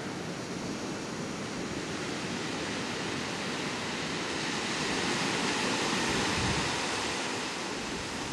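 Steady rushing noise of ocean surf on a beach, with wind on the microphone.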